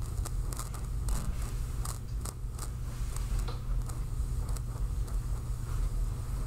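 Volume control of a vintage Sansui stereo receiver being turned up and down, heard through the speaker as scattered short crackles and clicks over a steady low hum. The pot's static is mostly cleared by DeoxIT, with a little crackle left, which the owner puts at about 90% gone.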